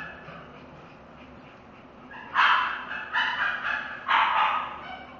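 A dog giving three short, high-pitched cries in quick succession over about two seconds.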